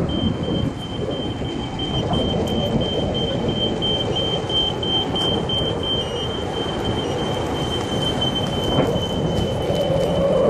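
Dolphin One D5 electric unicycle running fast over pavement: steady tyre and wind rush, with a thin high-pitched whine held almost throughout.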